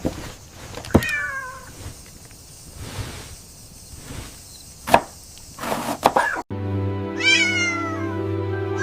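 A cat meowing: one short falling meow about a second in, then several meows in a row near the end, with a few sharp knocks between them. Background music with a held chord comes in partway through.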